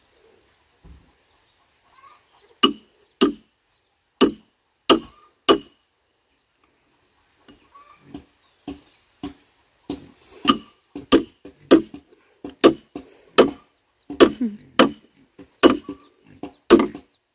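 A hammer striking iron wedges driven into a log to split it lengthwise. Sharp, ringing metallic blows come a few at a time at first, then a steadier run of roughly one to two a second in the second half.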